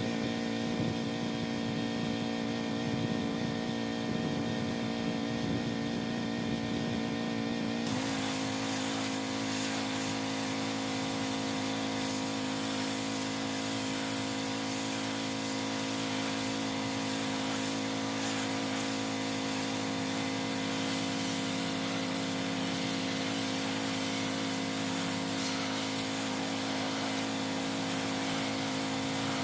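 Pressure washer running steadily, its engine giving a constant hum. About eight seconds in, a loud hiss of high-pressure water spray starts and carries on.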